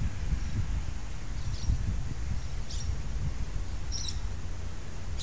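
A bird calling with short, high chirps, four evenly spaced about a second apart, over a steady low rumble.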